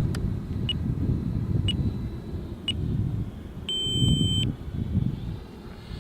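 Radio-control transmitter beeping: short high beeps about once a second, then one longer beep about four seconds in, over a low, uneven rumble.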